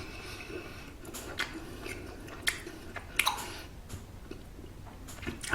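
Close-miked chewing of a soft Korean steamed bun (hoppang), with scattered sharp wet mouth clicks.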